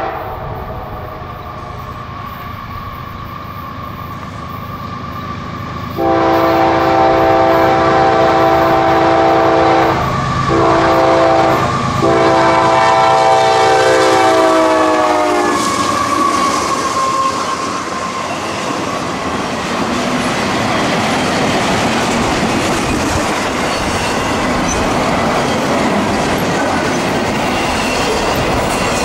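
Canadian Pacific diesel freight locomotive sounding its multi-chime air horn in one long blast, with two brief breaks, its pitch dropping as it passes. Then the steady rumble and wheel clatter of double-stack container cars rolling by.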